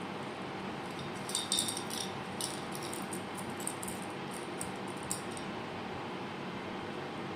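Short high-pitched clicks and jingles, a quick cluster about a second and a half in and a few scattered ones up to about five seconds, over a steady background hum.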